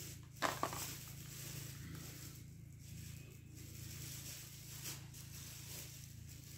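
Handling noise as a smartphone is picked up and held in the hand: two sharp knocks about half a second in, then soft rustling, over a steady low hum.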